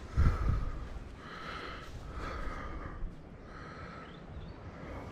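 A person's breathing close to the microphone: a run of short, noisy breaths about once a second. A gust of wind buffets the microphone just after the start.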